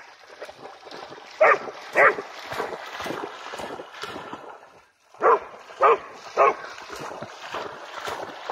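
Pharaoh Hound barking, two barks about a second and a half in and three more in quick succession about five seconds in, over the steady splashing of its legs through shallow water.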